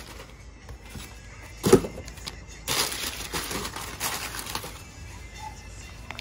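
Crumpled kraft packing paper crackling and rustling as it is pulled out of a cardboard box, in a dense stretch from about a third of the way in to past the middle. A single sharp knock comes just before it.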